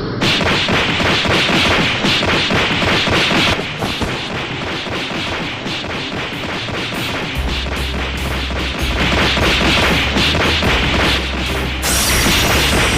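Rapid flurry of anime fight impact sound effects, punches and blows landing in quick succession. A low rumble joins about halfway through.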